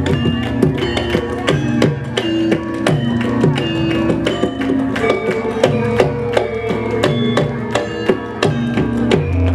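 Javanese gamelan (karawitan) ensemble playing. Struck metallophones ring out a brisk, steady stream of pitched notes over drum strokes.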